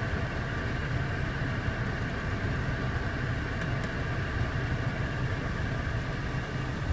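Steady low hum of a 2014 BMW 535i's 3.0-litre turbocharged inline-six idling, heard from inside the cabin. A couple of faint clicks a little past the middle.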